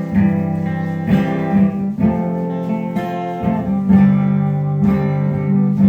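Acoustic guitar strummed, with a new chord struck about once a second.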